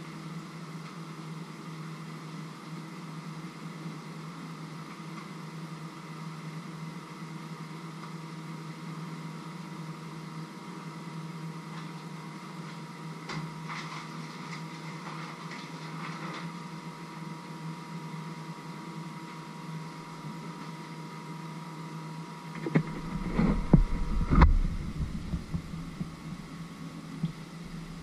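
A steady mechanical hum with a few faint crackles partway through. Near the end come several loud knocks and bumps, with a rustle of handling.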